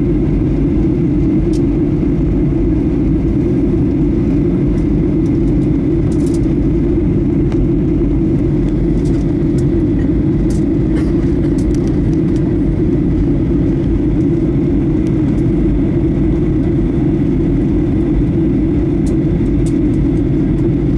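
Steady cabin noise inside a Boeing 737-800 on descent: the low, even drone of its CFM56-7B engines and the airflow over the fuselage, heard from a window seat beside the wing.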